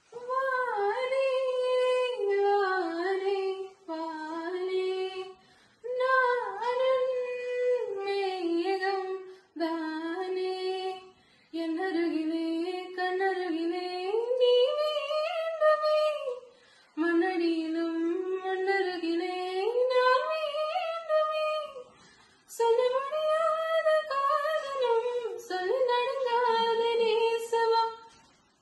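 A woman singing a song unaccompanied, in long melodic phrases broken by short pauses for breath.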